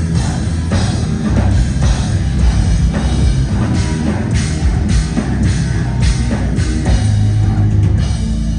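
Heavy metal band playing live, with loud drum kit and distorted guitars and a steady, pounding beat.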